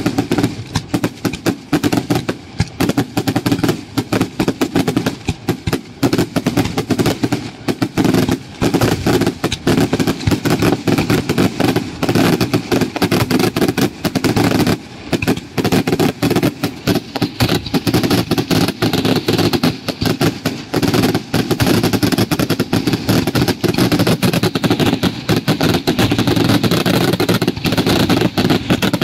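Daylight fireworks display: a dense, near-continuous barrage of bangs and crackling from aerial shells bursting overhead. A steady higher hiss joins in from about halfway.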